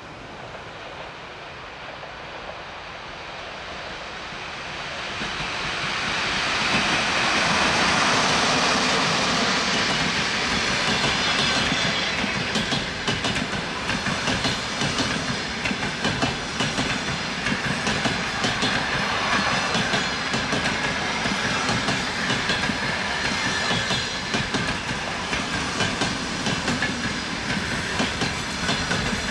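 EP1M electric locomotive approaching and passing, its noise swelling to a peak about eight seconds in. A long string of passenger coaches follows, rolling by with a steady clickety-clack of wheels over the rail joints.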